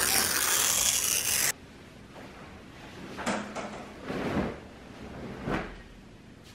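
A loud hiss for about the first second and a half, cutting off abruptly; then soft rustling of bedding, with three swishes of a duvet and sheets being pushed aside as someone gets out of bed.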